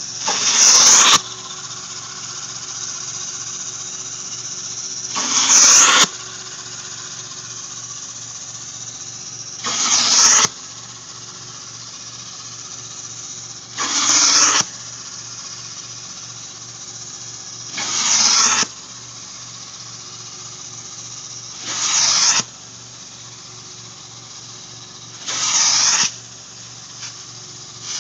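Carpet-cleaning extraction machine running with a steady hum as an upholstery tool is worked across a fabric sofa. About every four seconds the tool gives a loud hiss of spray and suction lasting about a second, seven strokes in all.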